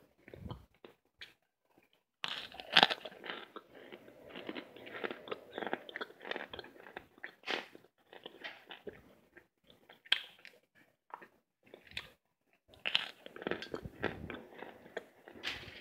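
Cornstarch chunks being crunched and chewed close to the microphone, with dense runs of crackly crunches. The crunching thins out about two-thirds of the way through, then picks up again near the end.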